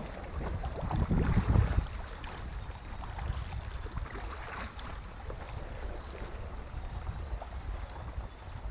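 Wind buffeting the microphone on a kayak, with a stronger gust about a second in, over light water sounds and faint knocks against the hull.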